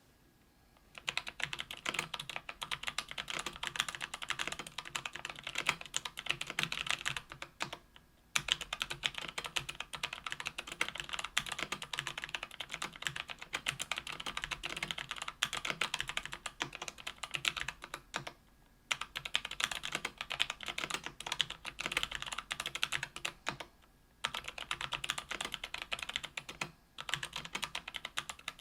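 Fast, continuous typing on a KBDfans Tofu 65% aluminium-case mechanical keyboard with lubed Kailh BOX Brown tactile switches on an aluminium plate: a dense run of key clacks that starts about a second in and breaks off for a moment a few times.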